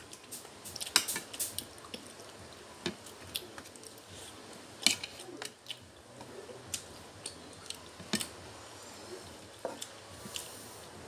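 Metal spoons clinking and scraping on ceramic plates and a cooking pot while eating, in irregular sharp clinks; the loudest come about a second in and near the middle.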